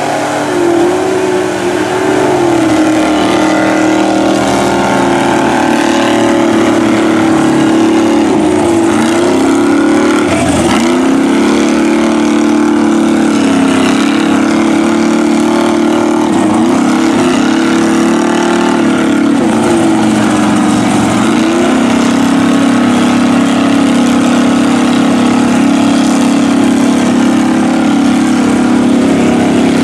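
Big-engined mud bog trucks on paddle tires running hard through a deep mud pit, engines revving continuously with the pitch sagging and climbing again several times as the tires dig and bog in the mud.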